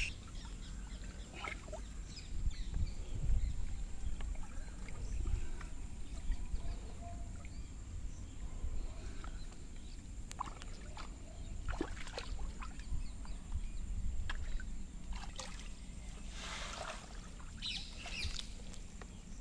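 Shallow muddy water sloshing and trickling as a man wades and works a fishing net by hand, with small splashes scattered through and one longer splash near the end.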